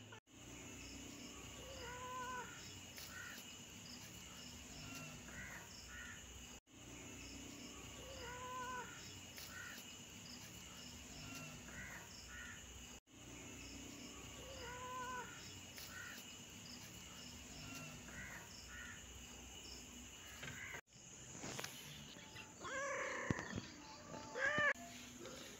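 Faint short animal calls over a low hiss, a few at a time, the same stretch looping about every six and a half seconds. Louder calls come near the end.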